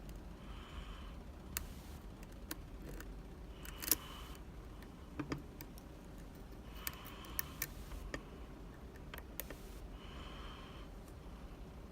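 Lock pick and tension wrench working in the keyway of a six-pin Medeco classic lock: scattered light metallic clicks and a few short scraping passes, with the strongest click about four seconds in.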